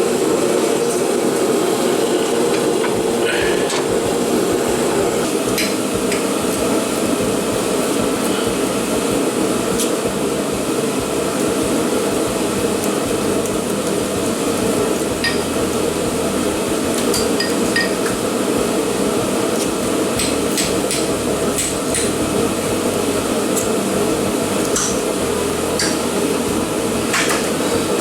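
Steady drone of a shop heater running, with scattered sharp metallic clinks and taps of hand tools on metal.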